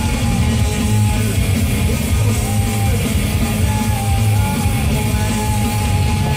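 Rock music with guitar playing loudly and steadily from a radio.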